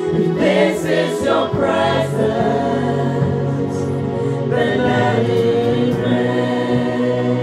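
Gospel worship team singing together in harmony over a live band, with long held notes and a new sung phrase starting about halfway through.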